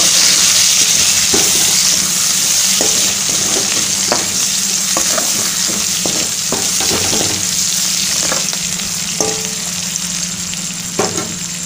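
Sliced onions and green chillies sizzling in hot mustard oil in a kadai, with scattered clicks and scrapes from stirring now and then; the onions are being fried lightly, not browned. The sizzle eases slightly toward the end.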